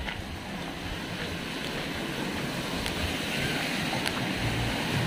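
Cars driving through floodwater on a road, their tyres throwing up a steady rushing splash over a low engine rumble, growing louder toward the end as the vehicles come closer.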